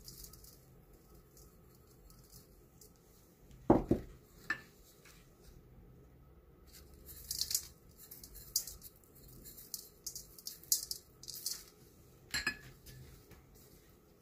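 A ceramic bowl clinking against a stainless steel mixing bowl, a sharp knock about four seconds in and another about twelve seconds in, with a few lighter taps. Between them comes faint, high crackly rustling as dry seasoning is tipped in.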